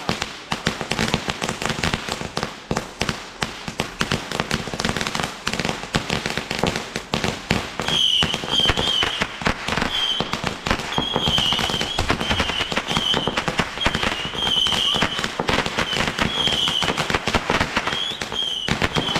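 Fireworks and firecrackers going off in rapid, continuous crackling. From about eight seconds in, a wavering high shrill tone comes and goes again and again over the crackle.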